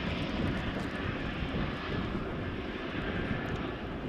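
Boeing Chinook HC2 tandem-rotor helicopter in flight: a steady beat from its two rotors over turbine engine noise.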